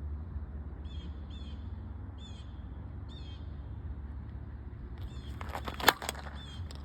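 A bird calls four times in short, high, bending notes over a steady low outdoor hum. About six seconds in comes a cluster of clatter with one sharp, loud crack.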